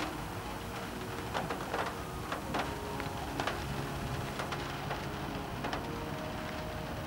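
Raindrops tapping irregularly against a window during a thunderstorm, sharp scattered ticks over a steady hiss of rain.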